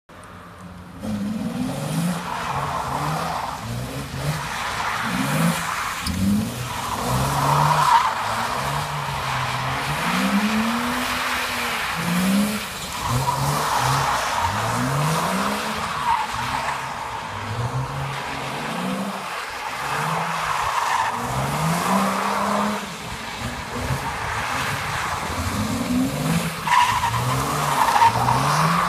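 BMW E36 M3's straight-six engine revving up and falling back again and again while the car drifts, with tyres squealing on and off on damp tarmac.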